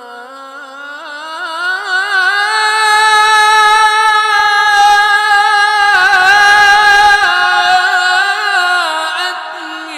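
A solo Quran reciter chanting in maqam Kurd, unaccompanied, on one long melismatic held note. The pitch climbs over the first few seconds, holds high with small turns and ornaments, and steps back down near the end.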